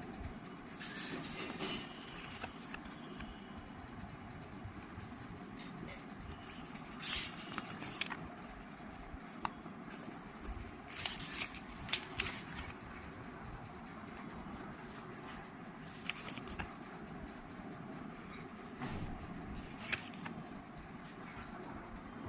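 Steady, fairly quiet background noise with a few short rustles scattered through it.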